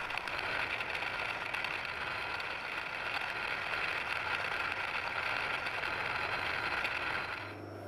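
Machine spindle turning a silver-steel gear-cutter blank against a button tool, roughing out the tooth profile: a steady whirring cutting noise. It drops away near the end, leaving a low hum.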